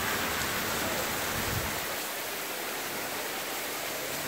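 Heavy rain pouring down in a thunderstorm downpour: a dense, steady hiss.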